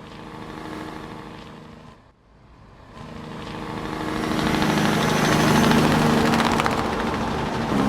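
A vehicle engine running steadily. After a brief break about two seconds in, engine noise grows louder over a couple of seconds and then holds steady.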